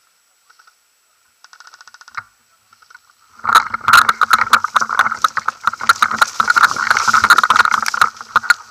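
Dry grass and gear rustling and scraping close to the camera as the player moves through the grass. It becomes a loud, dense crackle of clicks and scrapes about three and a half seconds in. Before that, a short rapid clicking rattle.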